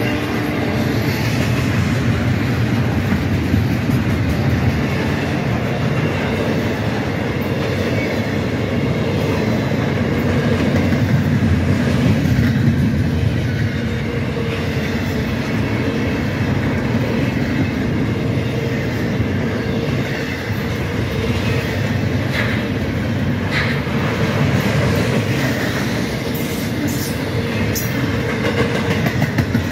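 Double-stack intermodal freight train's container well cars rolling past: a steady rumble and rattle of steel wheels on the rails, with a few brief sharp clanks in the second half.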